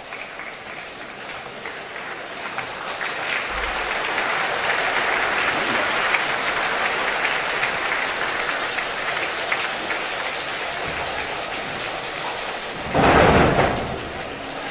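A rainstorm made by the choir with their hands: a patter of snaps, rubs and claps that swells over the first few seconds and holds, then a loud thunder-like crash about thirteen seconds in.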